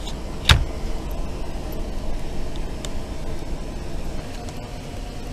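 Plastic laptop case being pried apart at its edge with a small blade: one sharp click about half a second in, then a few faint ticks, over a steady low rumble.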